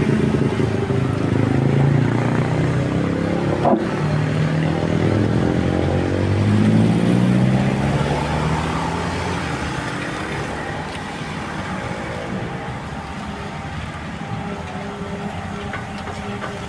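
A heavy machine's engine working under changing load, its pitch rising and falling for about ten seconds before settling lower and quieter. A single sharp knock comes about four seconds in.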